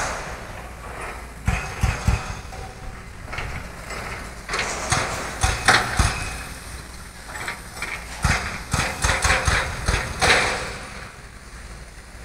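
Irregular footsteps and scuffs of someone walking over a debris-strewn concrete floor, in short runs of steps, with wind rumbling on the microphone.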